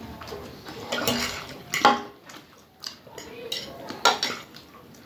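Spoons clinking and scraping against plates as two people eat macaroni quickly, with a few sharp clinks, the loudest about two seconds in and again near four seconds.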